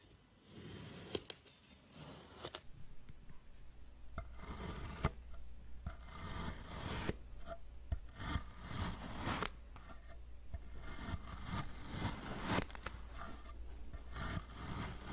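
A knife slicing through kinetic sand, giving a run of gritty, rasping cuts. The cuts come thicker and louder after the first few seconds.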